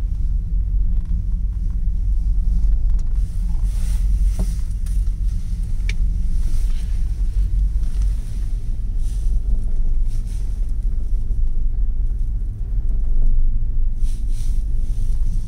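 Steady low rumble inside a moving cable-car cabin, with a few brief hissing swells.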